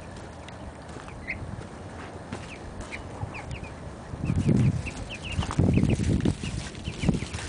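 Young chicken pullets peeping: many short high chirps, coming thick and fast after about three seconds, over low rustling bursts that grow louder from about four seconds in.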